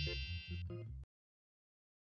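Short music sting: a rhythmic bass line under bright ringing chime notes, finishing a quick rising run. It cuts off abruptly about a second in.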